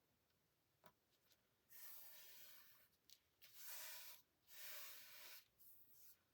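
Faint rustling and sliding of paper journal pages and fabric hinge strips being handled: three soft swishes of about a second each, with a few light taps.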